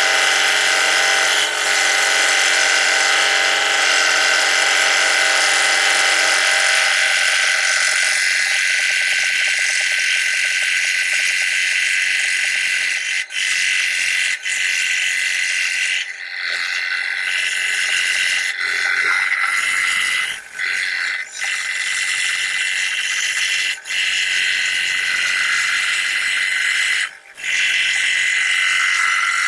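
A small woodworking power tool running steadily with a high-pitched motor whine. The deeper part of its sound drops away about seven seconds in, and the sound breaks off for a moment several times in the second half.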